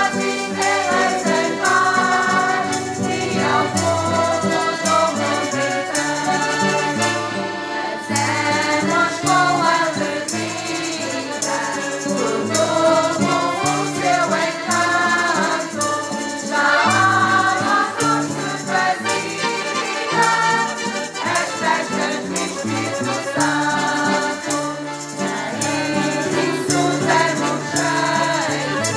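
A mixed choir of men and women singing a folk song over two piano accordions and a strummed acoustic guitar, with a steady beat.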